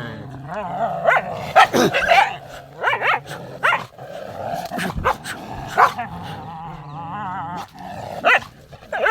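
Indian street dogs fighting: continuous snarling and growling broken by sharp barks roughly once a second, with wavering yelping cries.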